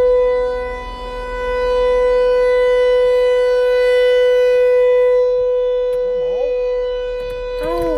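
Federal Signal 508 outdoor warning siren sounding a steady full-alert tone. Its loudness swells and fades as the siren head rotates. A voice is faintly heard near the end.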